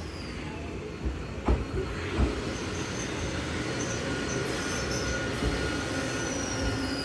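Eizan Electric Railway single-car electric train pulling into the platform and slowing, with two sharp knocks from the wheels about a second and a half and two seconds in. Near the end a high squeal falls slowly in pitch as the train brakes.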